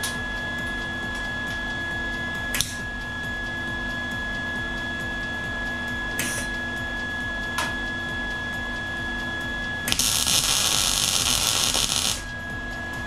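Welding on the door jamb of a 1969 Dodge Charger: a few very brief crackling tacks, then one sizzling weld of about two seconds near the end, the loudest sound here. A steady hum runs underneath.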